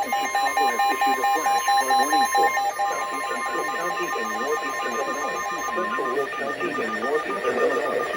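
Several emergency alert tones overlapping: a long steady alert tone that cuts off about six seconds in, a fast run of beeps that stops after about two and a half seconds, and higher beeping that runs on. A synthesized announcer voice is faintly mixed in underneath.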